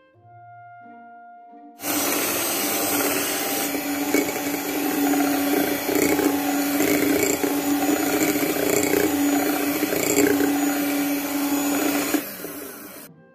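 Electric hand mixer running at speed, its beaters whipping egg whites and sugar toward stiff peaks: a steady motor hum with whisking noise that starts about two seconds in and cuts off suddenly about a second before the end.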